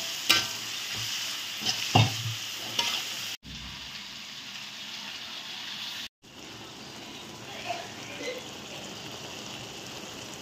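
Onion, tomato and chilli masala sizzling in oil in a metal kadai while a spatula stirs it, with a few sharp scrapes against the pan in the first three seconds. After an abrupt cut about three and a half seconds in, a quieter, steady sizzle continues.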